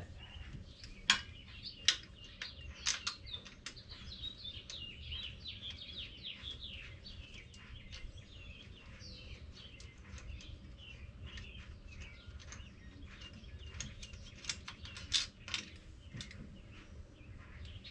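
Small birds chirping in runs of short, falling notes, with sharp metallic clicks and clinks from hand tools on the engine, a couple about a second in and a few more near the end.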